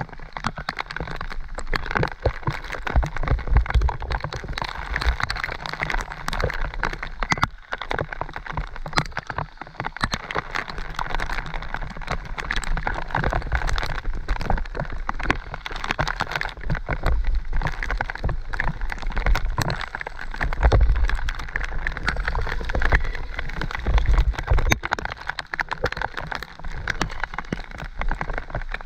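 Mountain bike rolling fast down a wet, muddy dirt trail in a heavy downpour: rain hiss packed with constant clicks and rattles from the bike over the rough ground, with low rumbles now and then.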